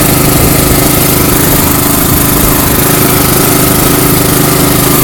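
An engine running steadily at an even idle, with a constant hum.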